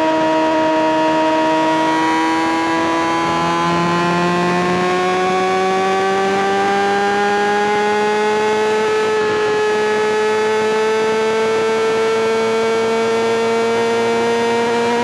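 Kawasaki ZX-6R's inline-four engine running at high revs, its pitch climbing slowly and steadily.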